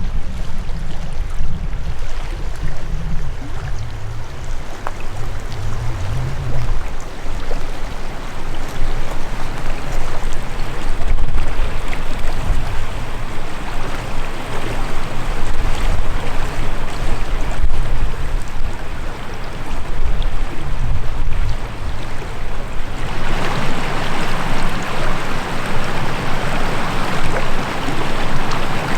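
River water rushing steadily, over an uneven low rumble of wind on the microphone. About 23 seconds in, the rushing grows louder and brighter.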